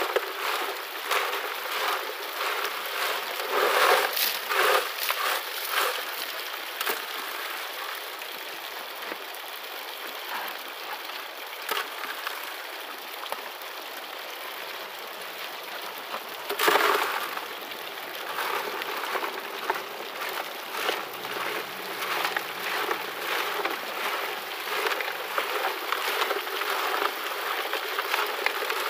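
Water rushing steadily through a Royal high banker sluice while shovelfuls of creek gravel and stones are dumped into its hopper, rattling and clattering on the metal grizzly. The heaviest clatters come about four seconds in and again around seventeen seconds.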